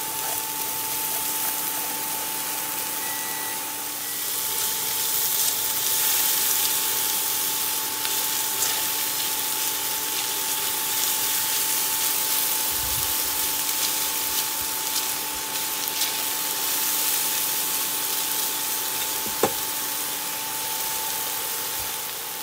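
Diced onions sizzling in oil in a nonstick frying pan while they brown, stirred now and then with a spatula with a few light scrapes and clicks; the sizzle gets louder about five seconds in. A steady thin hum from the portable induction cooktop runs underneath.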